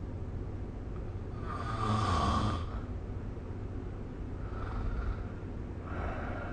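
A sleeping person snoring, with one loud snore lasting about a second, about two seconds in, then two softer snoring breaths near the end, over a steady low hum.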